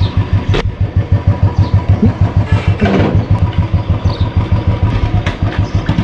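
Motorcycle engine idling with a rapid, even pulse, freshly kick-started on a cold morning.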